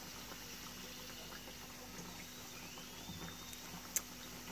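Samosas deep-frying in a pan of hot oil: a soft, steady bubbling sizzle, with one sharp click near the end.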